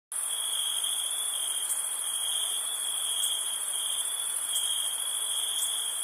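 Crickets trilling: a steady high-pitched chorus with a lower continuous trill beneath it, plus a few faint short chirps above.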